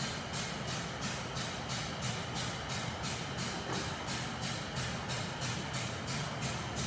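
Background music with a steady beat: a hissing pulse about three times a second over a steady low bass.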